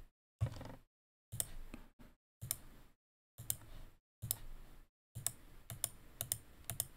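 Computer mouse and keyboard clicking in short spurts as lines are picked and erased in a 3D modelling program. Each spurt cuts off suddenly into dead silence.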